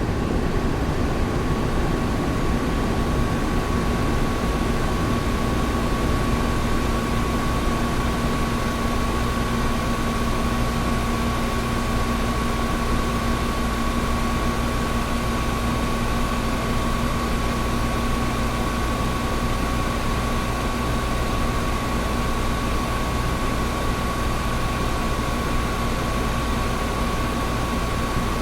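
Air conditioner running steadily: an even rushing noise with a deep rumble and two steady hums, one mid-pitched and one low.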